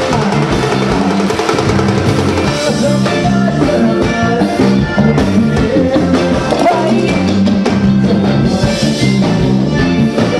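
Forró music: accordion, bass guitar and drum kit playing over a steady, repeating beat.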